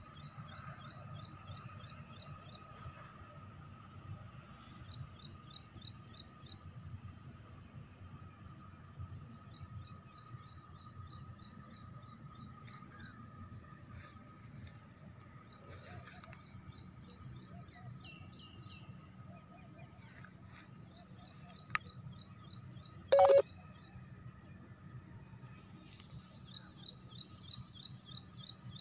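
A high chirping trill, a quick run of short down-slurred notes at about five to eight a second, repeated in bursts of two or three seconds with short gaps, over a faint steady high tone. A single sharp knock stands out about two-thirds of the way through.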